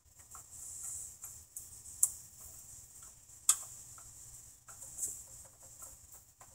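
Scattered light metallic clicks and taps of hand work on a small tractor engine, with two sharper clicks about two seconds and three and a half seconds in.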